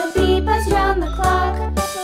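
Upbeat children's intro jingle: a bright melody over bass notes that change about every half second.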